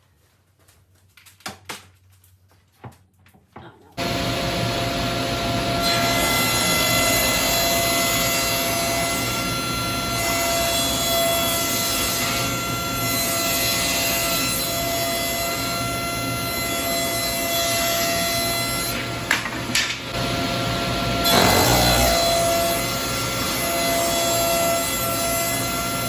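Electric power saw running steadily and cutting through a glued-up wooden panel, starting abruptly about four seconds in after a few faint clicks.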